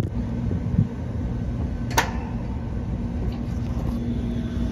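Steady low hum of a running rooftop heat-pump unit, with a single sharp click about two seconds in.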